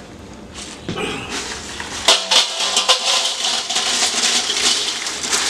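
Crisp fried tortilla chips rattling and crackling as they are handled and dropped into a stainless steel bowl. It is a dense patter of small clicks that starts about a second in and grows thicker about two seconds in.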